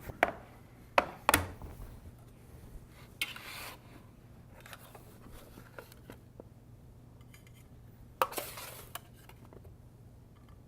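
Metal utensils clinking and scraping against dishes as roasted vegetables are served. There are a few sharp clinks in the first second and a half, a short scrape about three seconds in, and another just past eight seconds.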